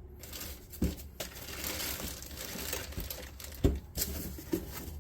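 Packaging being handled and crinkled while the amplifier's accessories are unpacked: a steady rustling, broken by a few knocks, the loudest one a little over halfway through.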